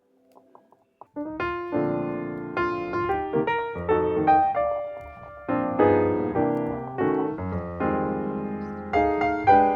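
Background piano music: chords and melody struck and fading, coming in about a second in.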